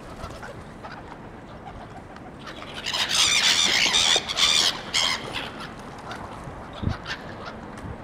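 A flock of gulls squawking: a loud burst of several harsh, overlapping calls about three seconds in that lasts about two seconds, with scattered shorter calls before and after.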